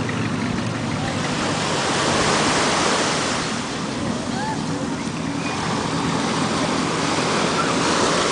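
Surf breaking and washing up a sand beach, the wash swelling twice.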